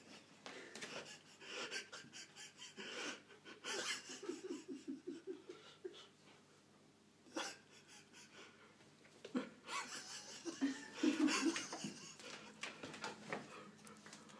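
A person laughing breathily, with wheezy breaths, in two runs of quick pulsed laughs about four and eleven seconds in, with scattered light clicks and scuffs between.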